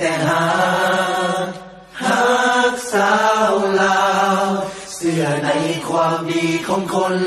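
A Lao song: a singer holds long, wavering notes in phrases, with short breaks about two seconds in and about five seconds in, over musical accompaniment.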